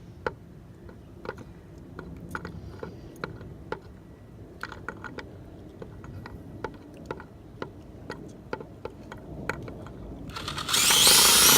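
Light, irregular clicks and taps as a hammer drill is fitted onto a cabinet screw. About ten seconds in, the drill's motor starts, its whine rising to speed and then running steadily as it backs the screw out.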